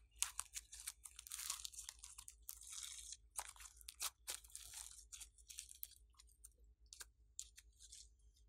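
Sticky crackling and small pops of a lump of yellow slime squeezed and kneaded between the fingers, faint, with the pops growing sparser in the second half.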